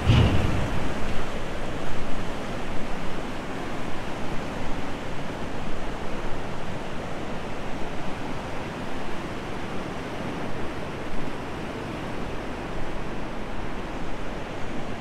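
Swollen, muddy mountain river rushing steadily in a continuous wash of water noise, with a brief low rumble at the very start.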